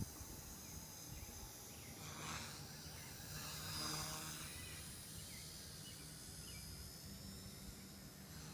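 Small electric RC helicopter flying at a distance: a faint, steady high motor whine with a low rotor hum, swelling briefly about four seconds in.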